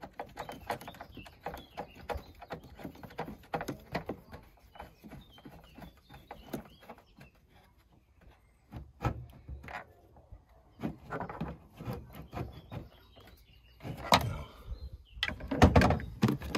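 Light metal clicks and taps of hand work on the engine mount as a nut is started on its stud, with a few louder knocks and rattles near the end.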